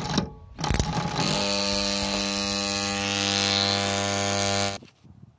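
Single-phase pump starter's contactor: a couple of short rattling bursts, then a loud steady electrical buzz with a deep mains hum that cuts off suddenly near the end.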